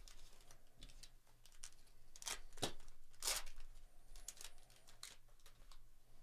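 Wrapper of a Panini Flux basketball card pack being torn open and crinkled as the cards are pulled out: a run of irregular crackles and rips, loudest in two bursts a little past the middle.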